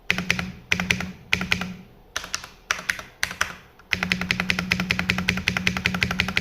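Custom Romeo 40% keyboard with fully modded Cherry MX Hyperglide Black linear switches on an aluminium plate in a 3D-printed case, clacking as it is typed on. Short runs of keystrokes with brief pauses, then steady fast typing from about four seconds in.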